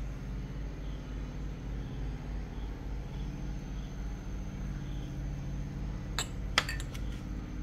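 Two or three sharp clinks of a glass tumbler being handled and set down about six seconds in, over a steady low background hum.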